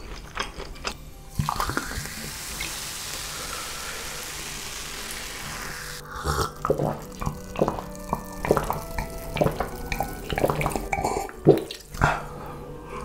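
Water poured steadily into a drinking glass for about four and a half seconds, then swallowing and mouth sounds as it is drunk.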